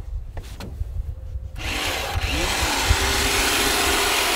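Portable electric winch starting up about a second and a half in and running steadily with a motor whine as it reels in cable, pulling the mini truck forward onto the trailer. Wind rumbles on the microphone before it starts.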